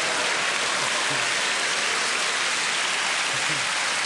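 A large audience clapping and laughing: steady, loud applause with a few voices rising out of it.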